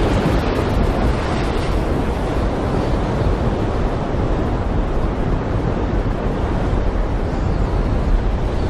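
Stormy sea: breaking waves and wind in a steady, continuous roar with a deep rumble underneath, one surge washing away in the first second or two.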